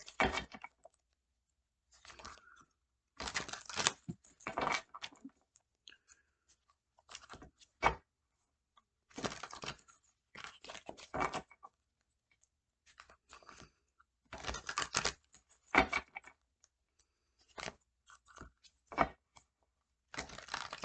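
A tarot deck being shuffled by hand: repeated bursts of card rustling with short pauses between, and a few sharp snaps.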